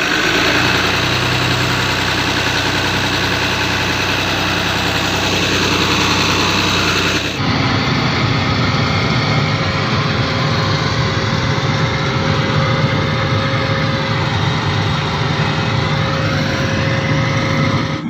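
Excavator diesel engine running steadily after a hard start that needed petrol priming. Its sound changes abruptly about seven seconds in and runs heavier after that.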